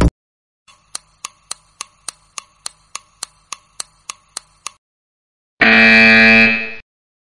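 Quiz countdown sound effect: a clock ticking evenly about three to four times a second for around four seconds, then a loud buzzer sounding for just over a second as the countdown reaches zero and time runs out.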